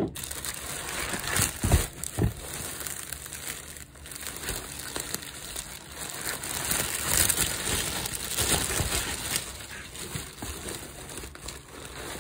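Clear plastic bag and foam wrap crinkling and rustling as hands move through the packaging inside a cardboard shipping box, louder in the second half. There are a couple of low thumps about two seconds in.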